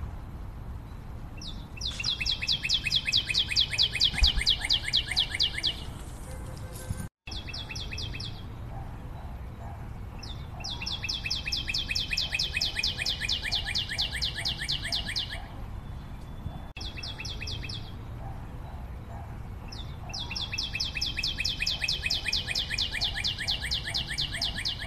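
A bird singing long, fast trills of evenly spaced notes, each trill lasting about four to five seconds, repeated three times with shorter trills between, over a faint low background hum.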